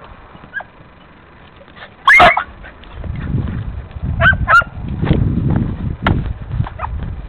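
Hunting beagles baying while flushing game from scrub. There is one loud bay about two seconds in and two short yelps just after four seconds. From about three seconds on, branches brush and rustle against the microphone.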